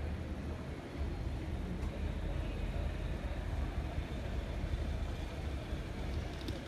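Steady low rumble of distant city traffic, with no thunder.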